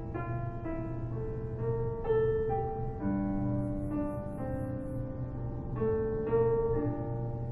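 Film score music: a slow piano melody of held notes, each new note struck about every half second, over a steady low hum.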